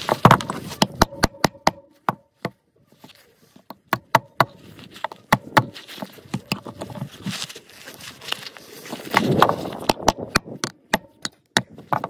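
Claw hammer driving a nail into a cut tree branch: a run of sharp knocks, several a second, with a short pause about three seconds in.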